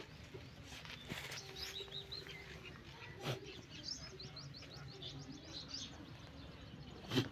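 Small birds chirping in quick strings of short high notes throughout, with two soft knocks, one about three seconds in and a louder one near the end.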